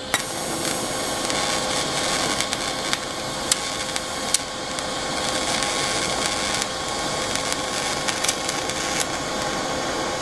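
TIG welding arc burning steadily on steel: an even hiss with a faint constant hum underneath and a few light clicks.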